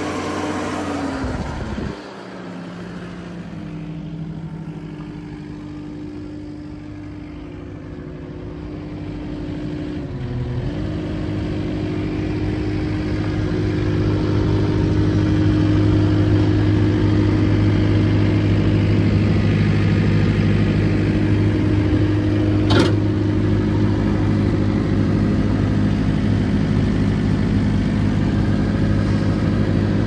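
Kubota turbo diesel engine of a Takeuchi TL8 track loader running; it drops in pitch to a lower, quieter run about two seconds in, then runs steadily and grows louder toward the middle. A single sharp click comes a little past the middle.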